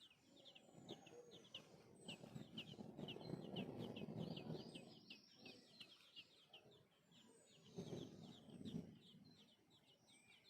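Birds chirping in a quick, steady run of short high chirps, three or four a second. A lower, rougher sound swells under them twice, about three seconds in and again near eight seconds.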